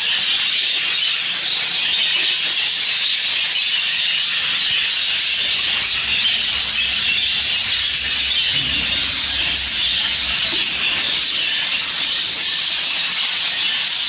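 Many budgerigars chattering and warbling together in a bird room, making a dense, steady, high-pitched chorus.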